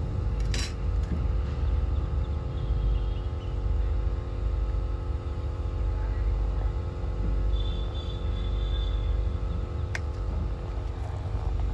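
A motor runs steadily with a low rumble and a hum of several steady tones. Two short clicks come through, one near the start and one near the end.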